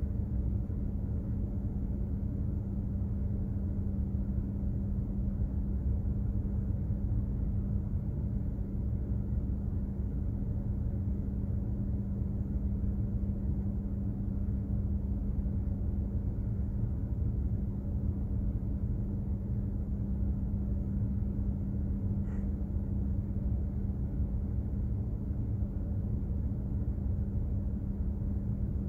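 Steady low rumble of a container ship under way, its machinery giving a constant deep hum.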